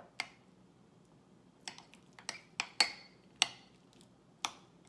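A utensil knocking and scraping against a bowl while mashing avocado with cream cheese: about eight sharp, irregular taps with short quiet gaps between them.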